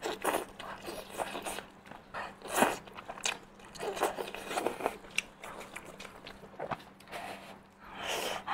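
A person biting into and chewing a large piece of meat in spicy sauce close to the microphone: a string of irregular bite, chew and mouth clicks, with one louder bite about two and a half seconds in.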